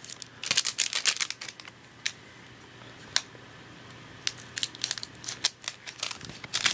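Foil trading-card booster pack wrappers crinkling and cards being handled and laid down. There is a cluster of crisp rustles about half a second to a second and a half in, then scattered small clicks and brief rustles.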